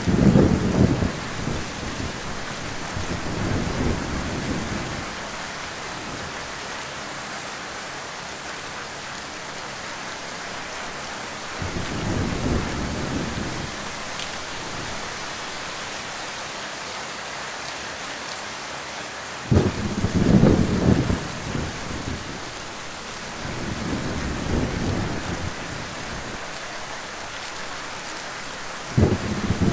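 Heavy rain falling with a steady hiss, and low rolls of thunder that come and go several times. The loudest rumbles start suddenly about two-thirds of the way through and again near the end.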